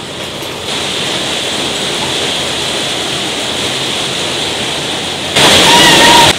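Steady rain hiss, suddenly louder for the last second, when a cat gives one short, even meow.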